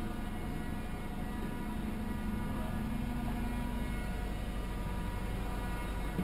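Steady machinery hum with several steady tones over a low rumble, heard inside a wireline truck's operator cab.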